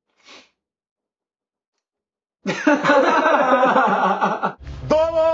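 A couple of seconds of quiet, then two men laughing loudly. Near the end a man shouts a long, drawn-out 'Domo!' held on one pitch.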